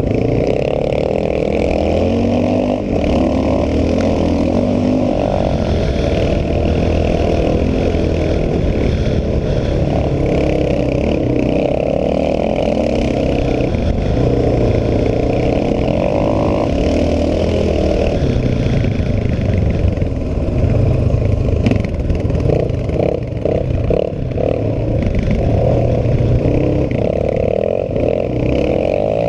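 Sport ATV engine running and revving up and down with the throttle, heard from on board while riding a dirt motocross track.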